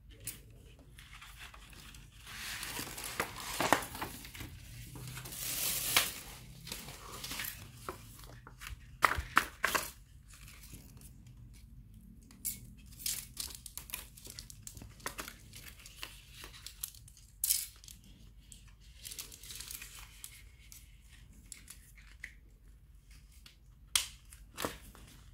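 Thin perforated plastic panels of an air-conditioner deflector being handled and flexed, rustling and crinkling, with scattered sharp clicks of plastic brackets and clips, two of them near the end as a clip is fitted.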